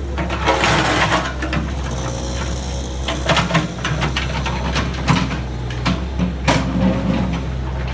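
Heavy vehicle engine running steadily, with repeated sharp clanks and knocks over it and a brief rushing hiss about a second in.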